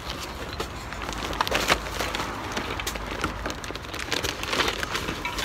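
Paper shopping bag full of cans and plastic packaging crackling and rustling as it is pushed through the slot of a street recycling container for packaging, with scattered small clicks and knocks. The crackling comes in clusters, with a burst about a second and a half in and another near the end.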